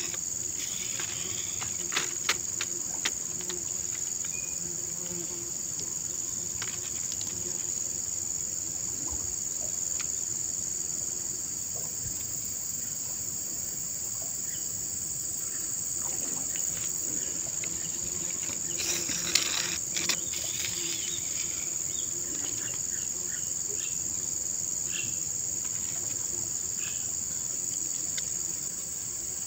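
Steady high-pitched drone of an insect chorus, such as crickets or cicadas, with a few short sharp clicks about two seconds in and again near nineteen seconds.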